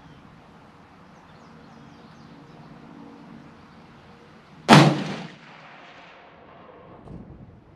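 One rifle shot from a .300 Win Mag Ruger American Go Wild bolt-action, a sharp loud crack about two-thirds of the way in with a short echoing tail.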